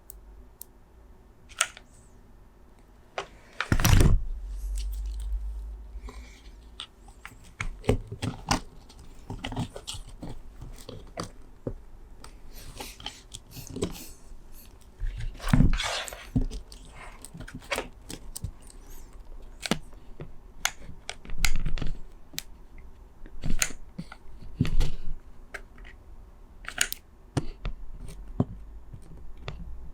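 Irregular clicks, taps and knocks of small plastic parts being handled and fitted while a 3D-printed split mechanical keyboard is assembled, with a few heavier thumps on the work surface.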